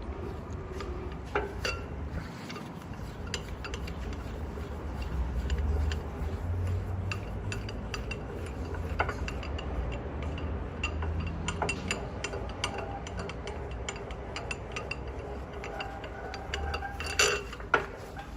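Metal clicks and clinks from the mechanism of a Yamada Seiki DS-12 tilting table saw being handled, over a steady low hum, with two louder knocks near the end.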